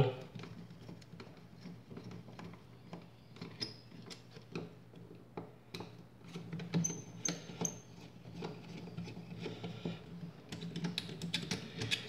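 Screwdriver backing out the mounting screws of an old duplex receptacle: scattered small metallic clicks and scrapes as the tip and screws turn against the metal mounting strap.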